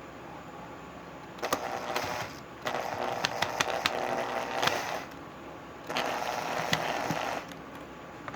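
Power screwdriver driving screws in three short runs, the motor humming with clicks as the screws seat.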